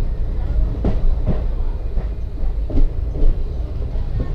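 Passenger train running along the track: a steady low rumble with a handful of uneven clacks as the wheels pass over rail joints.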